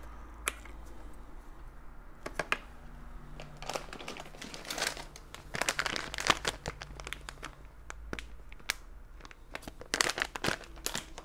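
Handling noise from a sewing machine foot pedal's circuit board being set into its plastic housing by hands in nitrile gloves: scattered light clicks and crinkly rustles, coming in small clusters.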